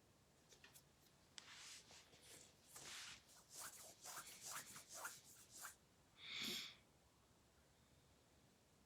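Faint scratching and rustling from things being handled, in short irregular strokes, followed about six and a half seconds in by one short, louder breathy hiss.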